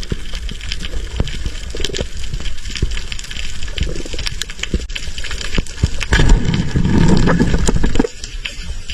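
Water sloshing and churning, with many short sharp clicks throughout, louder from about six to eight seconds in.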